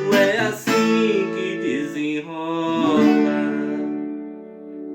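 Sertanejo song on viola caipira with a sung voice: the closing line is drawn out over strummed chords, then the last chord rings on and fades for the final couple of seconds.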